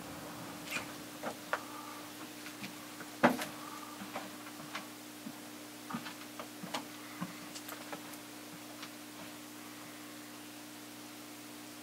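Scattered soft taps and thumps as two cats play-wrestle, swatting and pouncing on carpet; the loudest comes about three seconds in, and they die away after about nine seconds. A steady low hum runs underneath.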